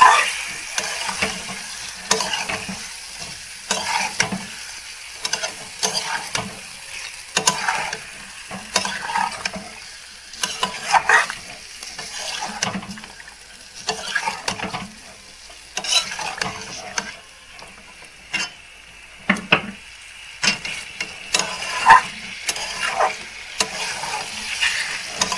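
Flat metal spatula scraping and knocking against a metal karahi in irregular strokes as masala-coated raw catfish pieces are stirred, over a steady sizzle of the spice paste frying in mustard oil.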